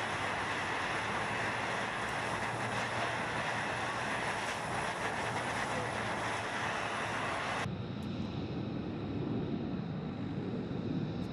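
Jet aircraft engine noise: a steady, loud rush with a thin high whine. About eight seconds in it cuts suddenly to a lower, duller rumble.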